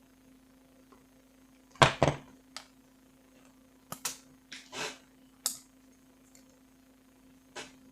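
Clicks, knocks and a short scrape of hardware being handled as a graphics card's heatsink and fan are taken off. A loud double clatter comes about two seconds in, followed by several lighter clicks and a brief scrape.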